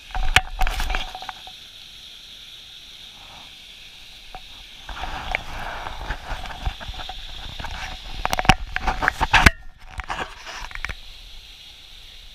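A small mountain creek cascade rushing steadily, with loud close rustling, scraping and knocking from handling near the microphone. The handling is loudest about a second in, again around five seconds, and in a cluster near nine seconds.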